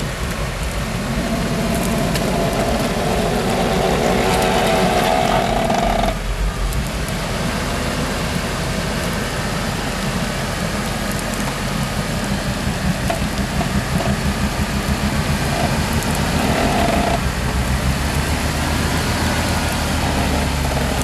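Off-road 4x4 engine running under load while an electric winch pulls the vehicle up a steep bank. The winch motor whines from about one second in, rising in level, and stops abruptly about six seconds in, then whines again briefly later on.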